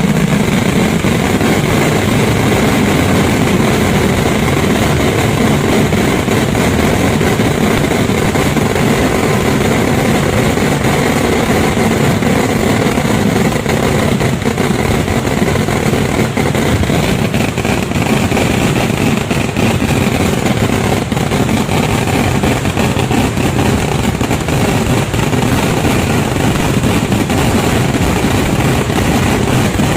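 Dense, continuous barrage of firecracker explosions in a Kerala temple-festival fireworks display (vedikettu), the bangs so rapid they merge into one loud, unbroken roar.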